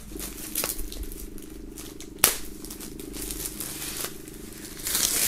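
Clear plastic film being peeled off a record sleeve, giving a fine, steady crackling rasp as it comes away, with one sharp click about two seconds in. Near the end the peeled film is crumpled, a louder scratchy rustle.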